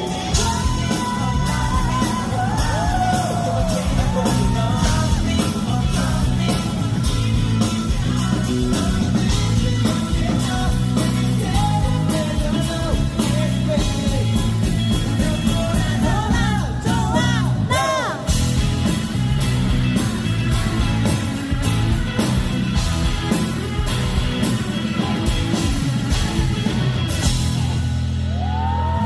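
Live rock band sound check: a male lead singer over drums, bass and guitar. About two-thirds of the way through, the voice climbs in a quick run of rising high notes.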